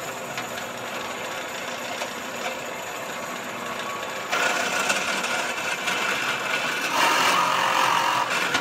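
Electric drill running steadily in the shop, getting louder about four seconds in and again near seven seconds as the bit bears into the wood.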